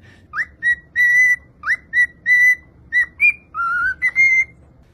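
A quick run of about ten short, clear whistled notes around one high pitch, some swooping sharply upward, a couple held slightly longer, and one lower note sliding up near the end.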